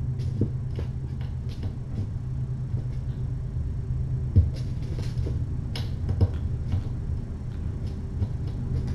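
Steady low room hum with scattered light clicks and taps throughout, one a little louder about halfway through.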